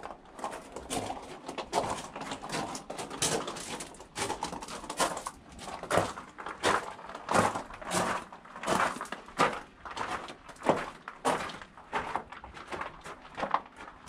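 A walker's footsteps at a steady pace, about three steps every two seconds.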